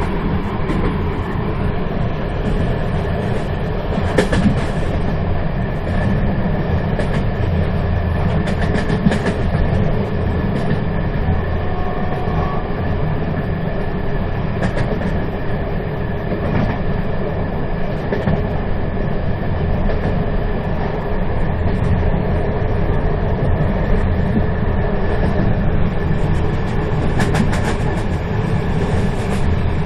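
Moving train running steadily: a continuous low rumble of wheels on rails, with occasional sharp clicks, a few about four seconds in, around eight to nine seconds, and a cluster near the end.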